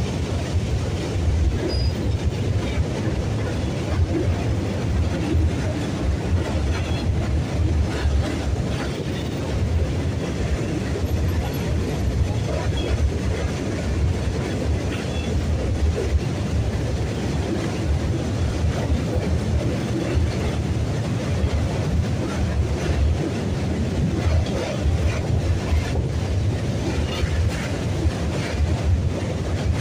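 Electric local train running over a steel truss bridge, heard from the open side of the coach: a steady, loud rumble of wheels on the rails.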